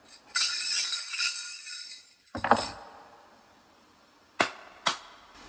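A high hissing shimmer for about two seconds, then a single sharp strike with a short ring. After a quiet pause come two short, sharp clicks about half a second apart near the end.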